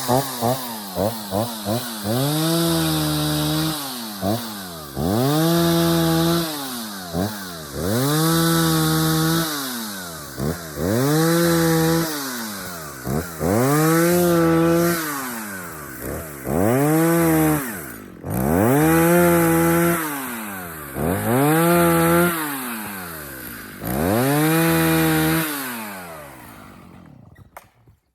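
Chainsaw engine revved up to full throttle, held briefly and let fall back, about nine times in a steady rhythm while felling a tree; the sound dies away near the end.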